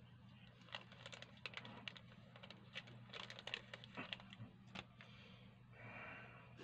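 Plastic wrapper of a pocket tissue pack crinkling in quick, faint crackles as it is opened and a tissue pulled out, followed by a softer paper rustle near the end as the tissue is unfolded.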